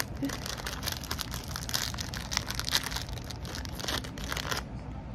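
A Doritos Bits chip bag crinkling and tearing as it is pulled open by hand: a dense crackle that stops about four and a half seconds in.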